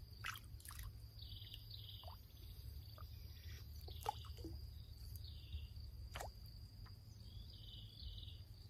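Quiet pondside outdoor sound: a steady thin high insect drone with short chirps, a low wind rumble, and a few soft drips and clicks from the water, the sharpest about four and six seconds in.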